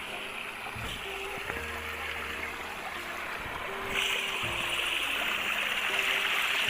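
Running water, a steady rushing that gets louder about four seconds in, with faint music underneath.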